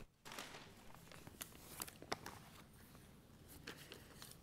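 Faint rustling of paper, a manila bid envelope and its pages being handled, with a few light taps and clicks over quiet room tone.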